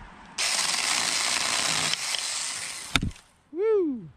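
Cordless battery-powered mini handheld chainsaw cutting through a thin sapling for about two and a half seconds, ending in a sharp crack as the stem breaks. A brief pitched call follows, rising and then falling.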